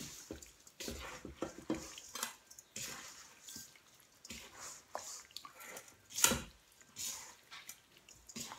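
Gloved hand mixing small salted fish with roasted rice powder in a stainless steel bowl: irregular wet rustling and squelching, with the fish scraping against the metal and one louder knock about six seconds in.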